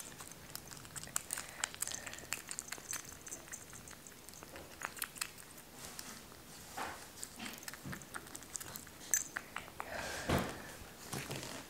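Kitten eating weaning food from a small dish: a patter of small wet chewing and lapping clicks.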